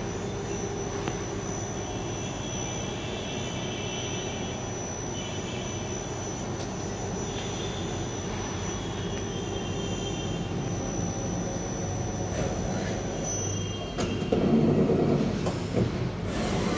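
Daewoo Puma CNC lathe running: a steady machine hum with a thin high whine, and higher ringing tones that come and go twice. The whine stops near the end, followed by a louder, noisier stretch lasting about a second and a half.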